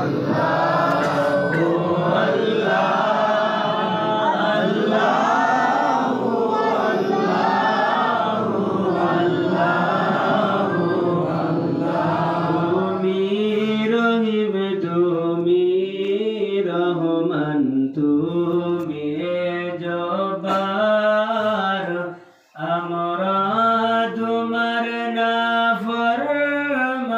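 Unaccompanied devotional chanting of durud sharif (salawat on the Prophet) in a melodic tune, first by a group of voices together; about halfway through a single clearer voice carries the melody, with a short break near the end.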